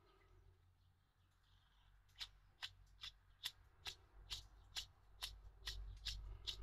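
Ape 50 starter's freewheel (overrunning clutch) gear turned by hand, clicking steadily about twice a second from about two seconds in. It turns a little more loosely now after a soak in petrol, which was meant to free up dirt that had made it stiff.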